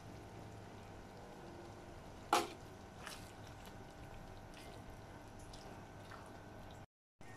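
A spatula knocks sharply once against a wok about two seconds in, then gives a few faint taps and scrapes as it stirs ground almond into a thick, wet curry, over a steady low hum. The sound cuts out briefly near the end.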